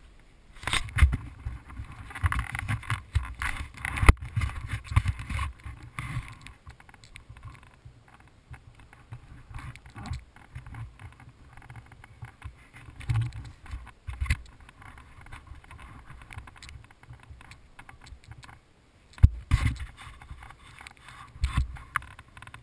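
Handling noise from a helmet-mounted action camera in its housing: irregular rubbing, bumps and knocks as the helmet is picked up and carried about, busiest at the start and again in bursts later on.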